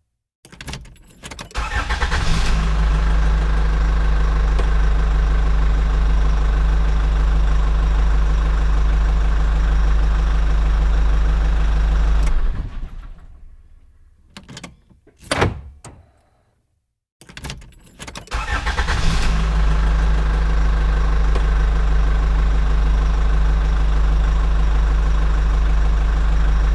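Truck engine started, running steadily for about ten seconds, then shut off and dying away. After a couple of sharp clicks it is started again and settles into a steady run.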